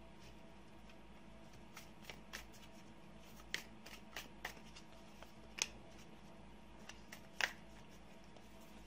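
Tarot cards being handled: scattered light clicks and snaps at irregular intervals over a faint steady hum, the loudest about three and a half, five and a half and seven and a half seconds in.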